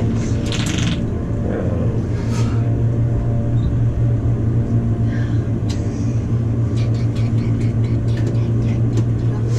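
Steady low hum and rumble of an elevator cab in motion, with a few faint clicks and rustles over it.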